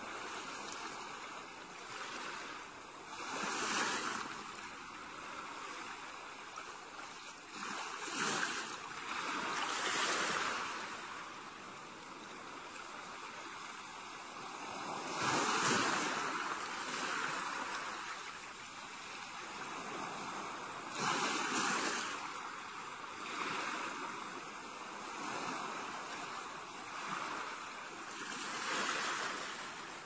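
Gentle ocean waves breaking and washing up the shore. The surf swells and fades in about seven surges, a few seconds apart.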